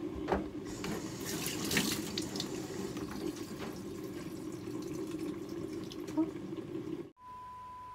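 Steady running water with a few light clicks and a short hiss about a second in. Near the end the sound cuts off abruptly and a single steady beep tone begins.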